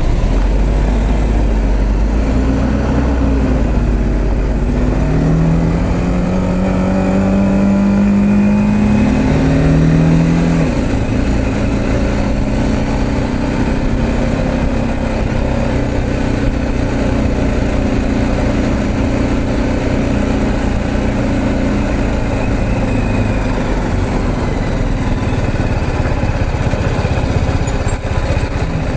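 BMW G310GS single-cylinder motorcycle engine accelerating away through the gears, its pitch rising in several steps over the first ten seconds or so, then running steadily at cruising speed.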